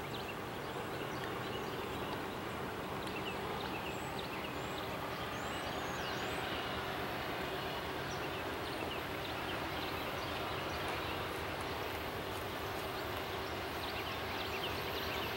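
Diesel locomotives of an approaching CSX freight train running steadily in the distance: a low, even rumble with a faint steady hum. Small birds chirp briefly again and again over it, most often in the first half.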